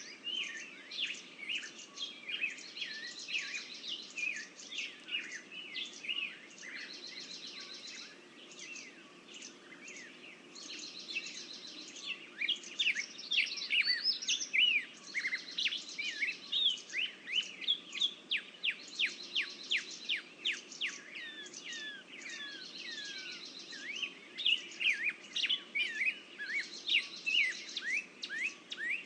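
Several songbirds singing and calling at once: a dense chorus of quick high chirps and short downward-sweeping whistles, busiest and loudest in the second half.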